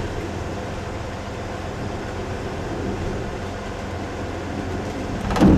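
Ultravan motorhome driving, heard from inside the cabin: its Corvair air-cooled flat-six engine running steadily under a constant rumble of road and drivetrain noise.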